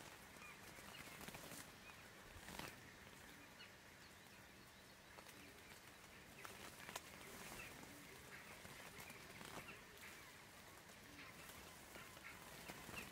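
Near silence: faint outdoor ambience with a few faint, short bird calls.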